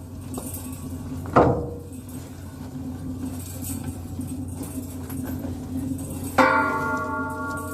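A boat's engine drones steadily, with a sharp metallic clank about a second and a half in. Near the end a ringing, bell-like tone starts and keeps sounding.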